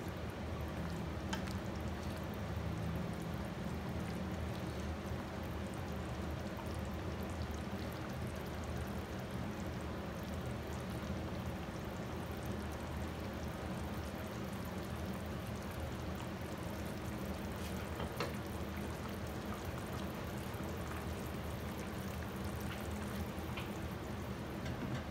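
Pork simmering in adobo sauce in a pan, a steady bubbling with a low hum underneath, and a few light knocks from a wooden spatula.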